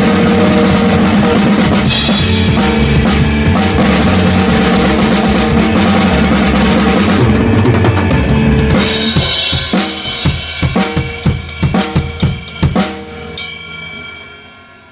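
A rock band's song with a full drum kit (bass drum, snare and cymbals) playing. About nine seconds in it breaks into a string of separate, spaced drum hits, which end in a ringing cymbal and chord that fade out near the end.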